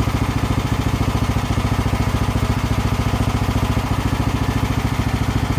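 Portable band sawmill's gasoline engine running steadily with an even low pulse.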